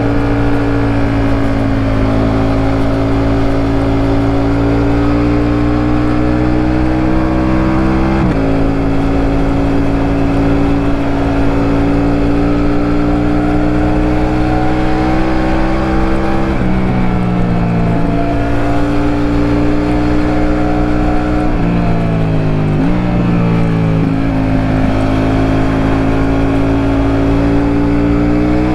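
Ducati Multistrada V4 Rally's 1158 cc V4 engine under way, heard onboard. The pitch climbs slowly under load, drops sharply about eight seconds in and again at about sixteen seconds, then rises and falls several times in quick succession before steadying and climbing again near the end.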